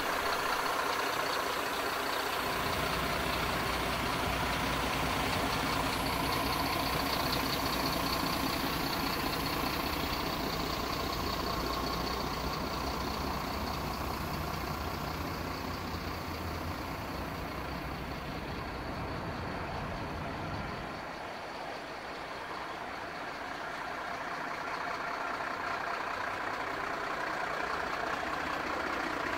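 Mercedes Econic refuse truck's diesel engine idling steadily.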